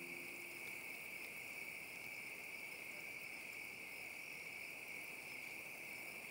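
Chorus of insects calling outdoors at dusk, a steady high-pitched buzz that holds at one pitch without a break.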